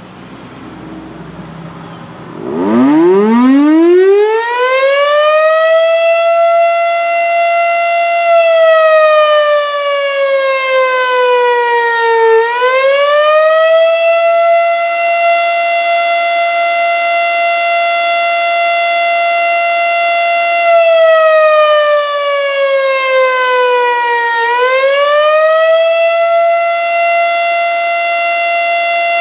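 Federal Signal STH-10 electromechanical tornado siren winding up about two and a half seconds in, its pitch climbing quickly to a steady high tone. The tone then twice sags slowly and climbs back: the rise-and-fall of the attack signal, sounded as a test.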